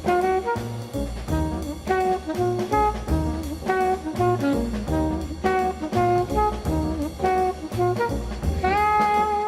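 Jazzy instrumental music led by brass, with a bass line and a steady beat; near the end a long held brass note slides up into pitch.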